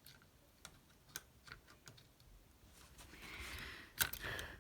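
Light, irregular plastic clicks and small knocks from a Hornby model locomotive and its track being handled. A louder click comes about four seconds in.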